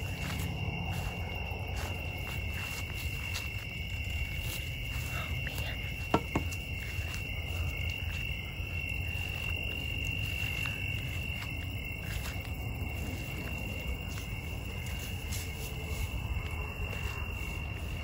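Crickets trilling steadily in a night chorus, with a single sharp knock about six seconds in.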